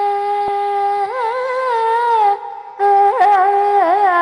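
A woman singing a long-held vowel in Carnatic style, the note sliding and oscillating in ornamented turns, with a short break for breath about two and a half seconds in.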